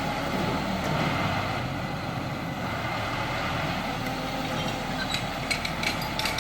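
A heavy engine running steadily, with a scatter of short sharp clicks and knocks in the last second or so.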